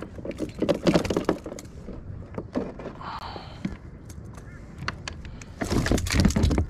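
Clatter of handling on a plastic kayak: knocks and rattles as a flathead is unhooked with pliers and lifted, in two bursts, about a second in and again near the end.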